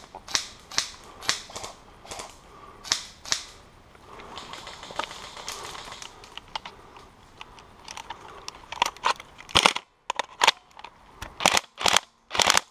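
Airsoft guns firing single shots: sharp clacks at irregular intervals, several in the first few seconds, then a quieter stretch, then a tight run of shots near the end.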